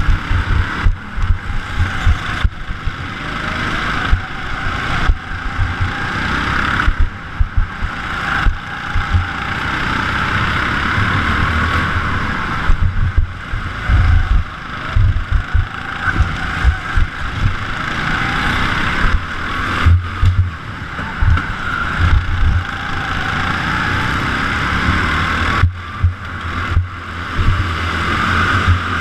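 Go-kart driven at race pace, its motor note rising and falling with the throttle through the corners. Irregular low thumps of wind buffeting the camera's microphone.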